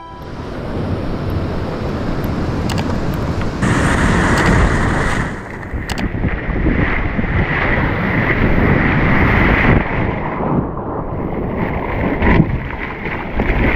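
Wind buffeting the camera microphone over the rush and slosh of broken surf around a surf ski's hull as it is paddled out through white water.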